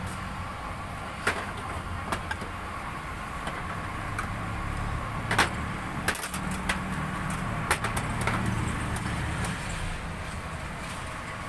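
Steady low rumble of road traffic, with a few sharp clinks of a metal spoon against tin cans and a cup, the loudest about five seconds in and a quick run of them between six and eight seconds.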